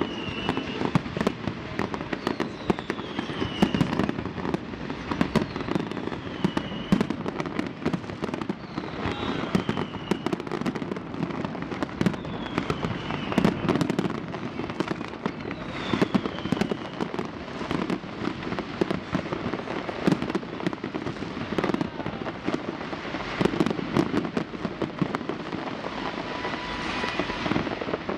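Fireworks display: a dense, continuous run of bangs and crackles, with a falling whistle every two to three seconds during the first half.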